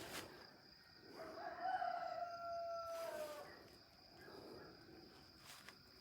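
A rooster crowing once in the distance: one long drawn-out call that falls slightly in pitch at the end.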